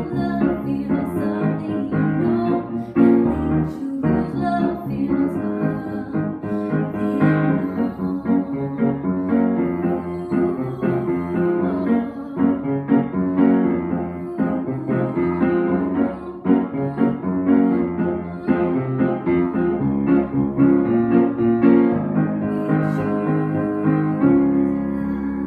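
Piano playing chords in a steady rhythm, a passage of a reggae-style song.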